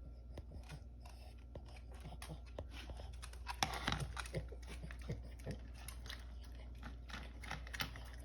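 A dog eating fast: quick crunching and chewing, thickest about halfway through.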